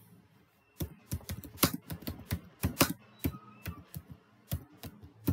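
Typing on a computer keyboard: an irregular run of quick keystrokes starting about a second in.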